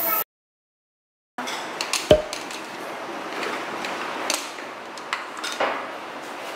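About a second of dead silence, then the clatter of a small shop kitchen: ceramic bowls knocking and clinking as they are handled at a bamboo steamer, with one louder knock about two seconds in, over steady room noise.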